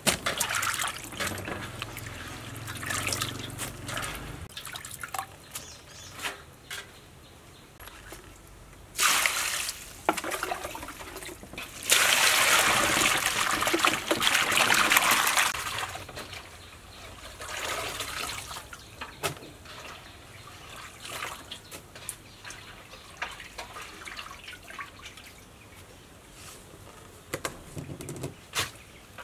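Hands stirring and rubbing sliced lotus root in a steel basin of water, with irregular splashing and sloshing. About twelve seconds in, water rushes into the basin over the roots for a few seconds; this is the loudest part.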